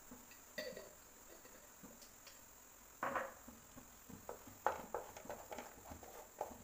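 Wooden spatula stirring and scraping thick jackfruit halwa paste in a nonstick kadai: faint at first, then a series of short scrapes and knocks starting about three seconds in.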